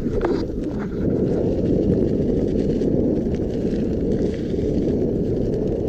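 Inmotion V10F electric unicycle riding over a rough dirt trail: a steady low rumble from its tyre on the ground and the ride's motion, with faint scattered ticks over it.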